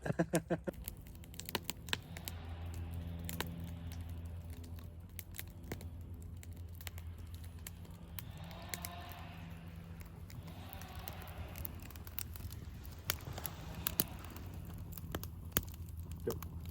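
Crackling campfire: scattered sharp crackles and clicks over a low steady hum, with brief rustling and crinkling about halfway through.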